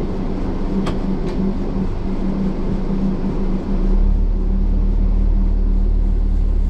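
Coach engine running with road noise, heard from inside the cabin: a steady hum with two short clicks about a second in. Just under four seconds in, a deeper low rumble comes in and holds until near the end.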